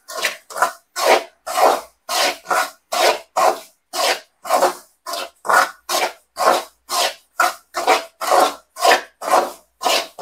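Dry semolina (rava) being stirred and scraped around a pan while it dry-roasts over a high flame, a steady rhythm of short raspy strokes, about two and a half a second.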